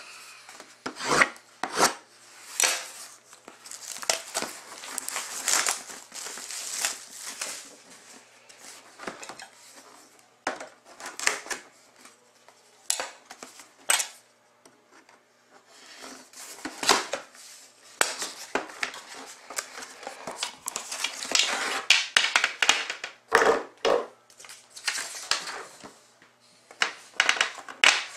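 A sealed trading-card box being unwrapped and opened: shrink-wrap plastic crinkling and tearing, knife and cardboard scrapes, and sharp clicks and clinks as the metal tin inside is handled and its lid lifted. The handling comes in many separate clicks, with longer spells of crinkling twice along the way.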